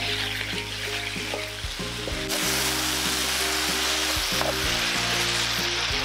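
Spicy marinated black pork and vegetables sizzling steadily in a hot wok while a wooden spatula stirs and tosses them. Background music plays underneath.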